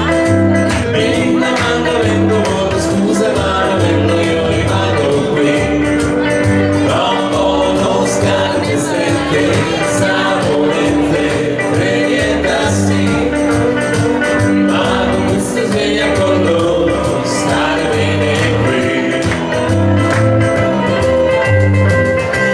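Loud dance music with singing and a steady beat.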